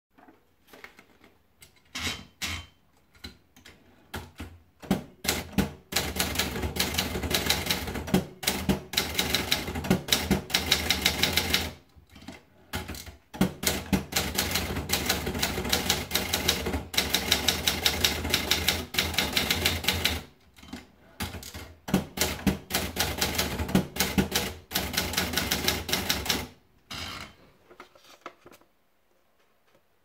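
Adler Gabriele portable typewriter: a few scattered clicks as paper is fed in, then three long runs of fast key strikes, one for each typed line, with two short breaks between them. A few last clicks come near the end before it falls quiet.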